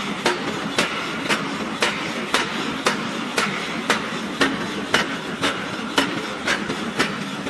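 A mechanical power hammer strikes red-hot steel in an even rhythm of about two sharp blows a second, over a steady running noise.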